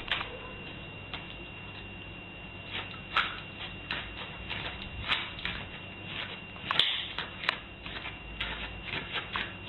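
A dog's paws and claws tapping and scratching on a doormat and tiled floor: faint, irregular clicks and taps.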